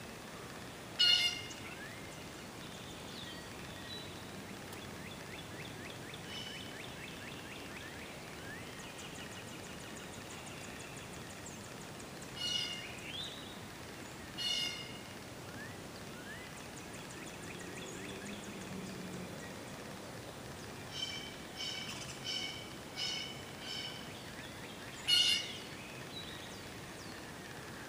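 Wild birds calling: four loud calls spaced well apart, a quick run of about six shorter calls about three-quarters of the way through, and fainter trilling songs between them, over a steady background hiss.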